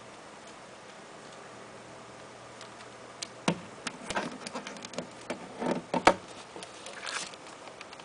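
Irregular handling clicks, knocks and rustling, starting about three seconds in and loudest around three and a half and six seconds in. Underneath is the faint steady hum of a Daikin wall-mounted air conditioner running.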